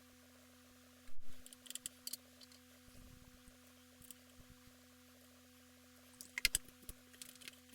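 Sharp clicks and knocks of hands handling hardware: a loud one about a second in, a few small ticks, and a quick cluster near the end, over a steady low hum.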